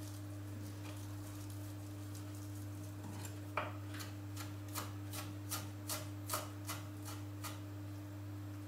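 Kitchen knife chopping fresh parsley on a wooden cutting board: sharp knocks about two or three a second, starting a few seconds in, over a steady low hum.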